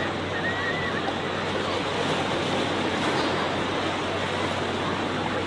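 Beach ambience: a steady wash of small waves on the shore, with the voices of a crowd of bathers faint and distant underneath.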